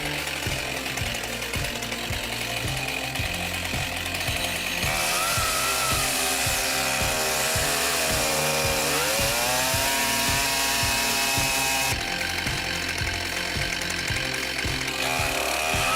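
Background music with a steady beat over a chainsaw running, its pitch rising and falling in the middle as it is revved.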